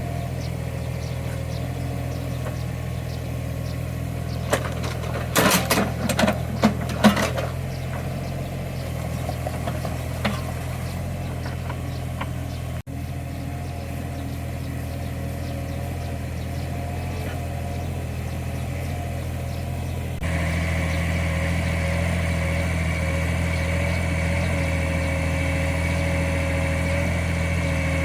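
Small Caterpillar excavator's diesel engine running steadily, with a quick run of sharp metallic clanks about five seconds in. About two-thirds of the way through it gets louder, with a higher steady whine added.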